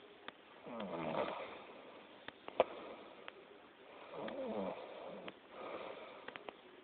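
A sleeping person snoring: two long snores, each wavering in pitch, about a second in and about four seconds in, and a softer snoring breath near the end. Scattered sharp clicks come between them; the sharpest, about midway, is the loudest moment.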